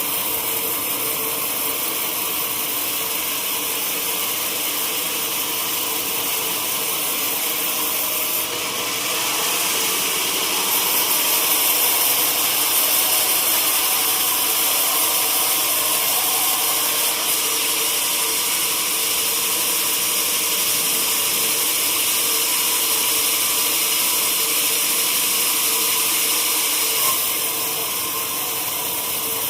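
Sawmill saw running steadily on teak logs, with a constant hum under a hiss. From about 8 s in to near the end it grows louder and hissier, as the blade works through the wood, then drops back to the running sound.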